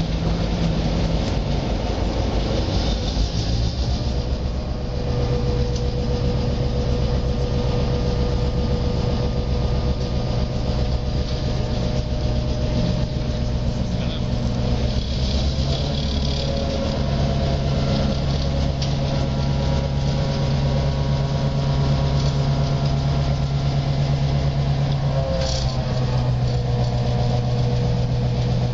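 NOHAB M61 diesel-electric locomotive's EMD 567 V16 two-stroke diesel running steadily at low revs, a deep even throb. Its note shifts slightly about four seconds in.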